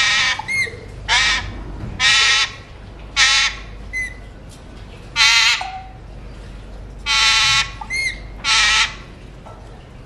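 Alexandrine parakeets squawking: a series of about seven loud, harsh calls, each under half a second, with short high chirps between them.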